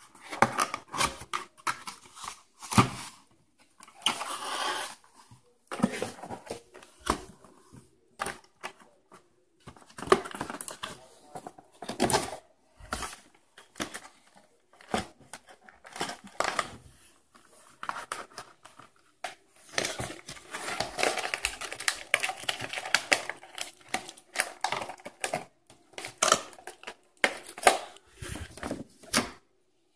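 Cardboard toy box being opened and handled: flaps and a cardboard insert pulled out, cardboard scraping, tapping and crinkling in irregular short bursts, busiest about two-thirds of the way through.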